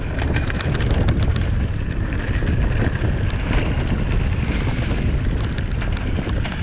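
Mountain bike descending a rough trail over roots and stones: wind buffeting the microphone at speed, with tyres rolling and the bike rattling in many quick clicks.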